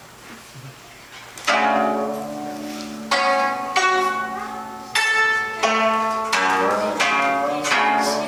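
Guzheng zither plucked solo: after a quiet first second or so, about seven loud plucked notes and chords that ring out and fade, with a few notes bent in pitch about two-thirds of the way through.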